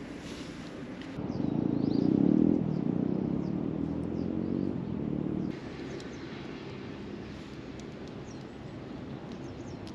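A vehicle engine passing close by, swelling about a second in and dropping away after about five seconds, with small birds chirping.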